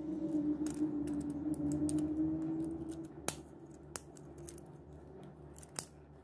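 Sharp plastic clicks as parts of a mini 4WD toy car kit are handled and pressed onto its plastic chassis while the motor is fitted, over a steady low hum for the first three seconds.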